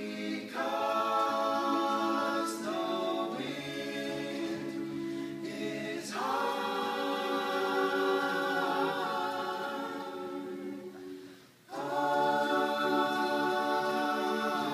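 An a cappella vocal group singing long held chords in close harmony, phrase after phrase, with no instruments. There is a brief pause, almost silent, about three quarters of the way through, before the last chord comes in together.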